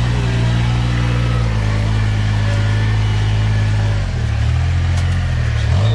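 Rice transplanting machine's small engine running, its speed dropping a little about 1.5 s in and again around 4 s, then picking back up near the end.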